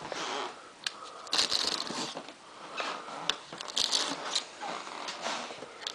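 Irregular rustling and crinkling with scattered sharp clicks and light knocks, like things being handled at close range.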